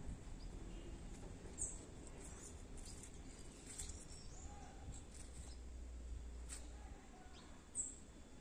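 Faint outdoor ambience: scattered short, high bird chirps over a low rumble, with a sharper chirp about one and a half seconds in and another near the end.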